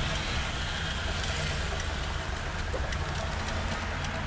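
Vehicle engine running with a steady low rumble of engine and road noise, heard from inside the cabin while driving.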